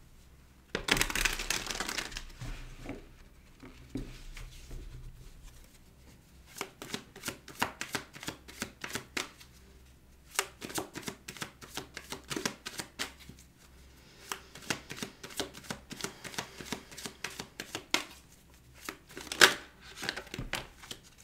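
Deck of tarot cards shuffled by hand. A burst of card noise comes about a second in and lasts about a second. From about six seconds in there is a long run of quick, irregular card clicks, the loudest snap near the end.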